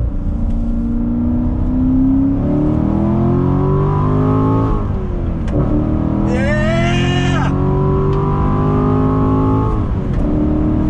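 Corvette Grand Sport's 6.2-litre naturally aspirated V8 under hard acceleration, heard inside the cabin: it revs up steadily through one gear, drops in pitch at a manual upshift about five seconds in, then revs up through the next gear to another shift near the end. A brief whooping shout comes partway through the second pull.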